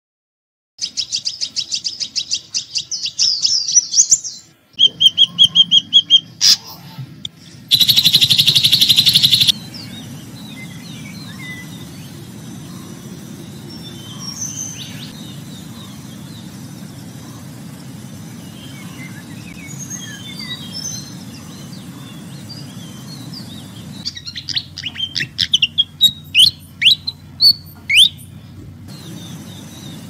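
Several different songbirds calling in turn. First come rapid runs of high chirps, then a loud dense trill. After that, scattered softer calls sound over a low background hum. Near the end comes a series of sharp, falling whistles.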